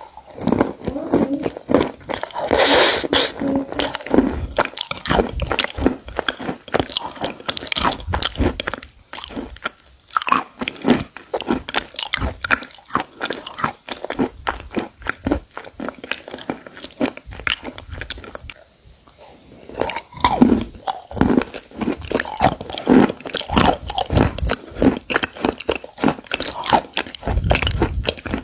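Biting and chewing brittle pieces of white slate-like stone: dense, irregular crunching and crackling, bite after bite.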